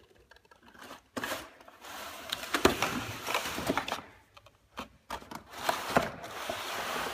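Cardboard packaging scraping and rustling as a plastic toy van is slid out of its box, in two spells with a few sharp knocks of plastic against cardboard.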